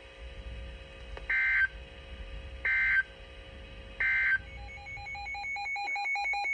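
Emergency Alert System digital data tones on weather radio: three short, loud, screechy bursts about a second and a half apart, the end-of-message signal after a severe thunderstorm warning. They are followed by a couple of seconds of fast, chattering beep tones near the end.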